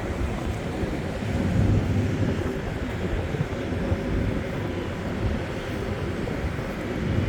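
Wind rumbling and buffeting on the microphone, with a faint steady hum underneath.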